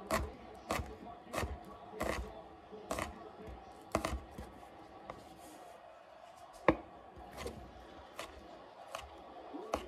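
Chef's knife chopping garlic cloves on a wooden cutting board: about a dozen short knocks of the blade on the board at an uneven, unhurried pace.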